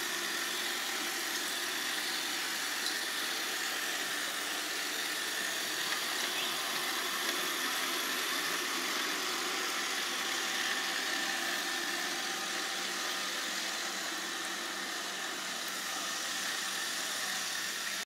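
iRobot Roomba robot vacuum running, a steady hum of its motors and brushes.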